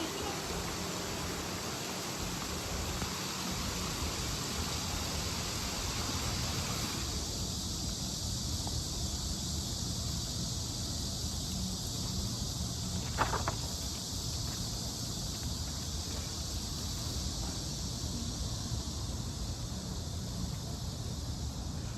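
Steady outdoor ambience: a constant high hiss over a low rumble, with one short sharp sound about thirteen seconds in.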